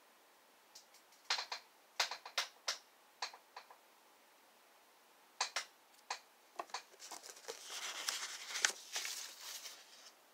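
Paper printouts being handled on a tabletop: scattered light taps and clicks, then a few seconds of paper rustling and sliding near the end.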